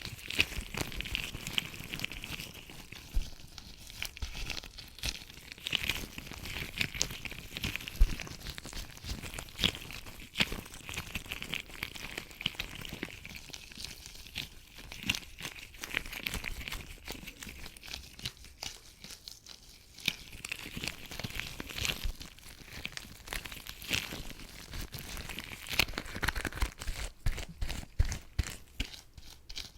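Latex gloves rubbing and crinkling, with many sharp clicks and snaps.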